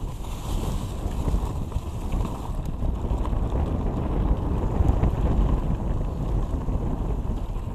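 Wind rushing over the camera microphone, with tyre rumble from a mountain bike riding fast down a dirt trail: a steady, noisy rush that is heaviest in the low range.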